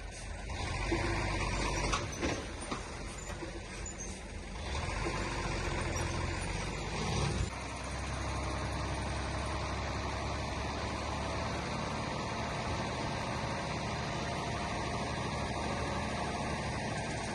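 Heavy diesel construction machinery running, its engine drone growing louder about a second in and again near five seconds, with a few short knocks along the way.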